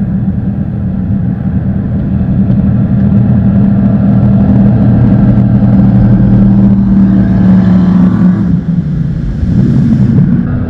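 Two racing jet boats running flat out, their engine drone growing louder over the first few seconds as they close in. It breaks off about eight and a half seconds in as they pass beneath, followed by a hiss and a brief rising whine.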